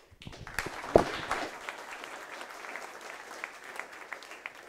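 Audience applauding a talk, many hands clapping at once, with a single loud thump about a second in; the clapping thins out near the end.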